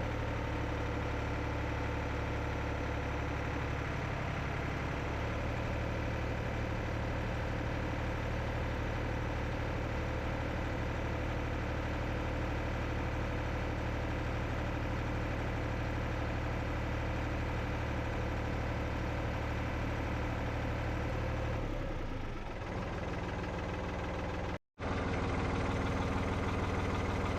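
Tractor engine running steadily at a constant speed. Its note shifts lower about three quarters of the way through, then cuts out for an instant and resumes.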